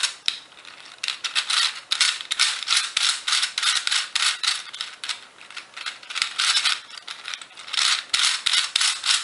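Plastic puzzle cube being turned fast by hand: quick runs of clicking, rattling turns with brief pauses between them, including a pause about a second in and another around five seconds in.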